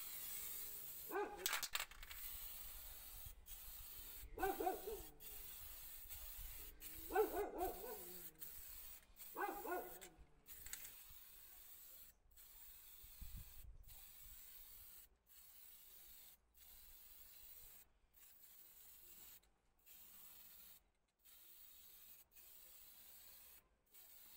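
Aerosol spray paint can hissing in repeated bursts with brief pauses between them as silver paint is sprayed onto sheet-metal parts. A dog barks in four short bouts during the first ten seconds, louder than the spray.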